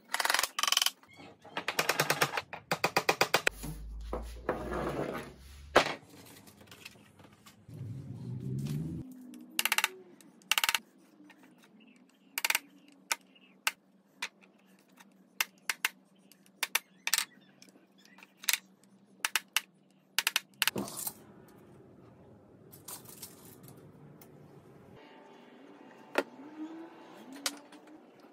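Claw hammer tapping small nails into pine frame pieces: a fast run of taps, then single sharp taps spaced about a second apart, with wood and nails being handled in between.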